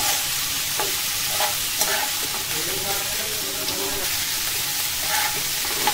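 Chopped vegetables sizzling in hot oil in a nonstick wok while a metal spatula stirs them, with a few short scrapes of the spatula against the pan.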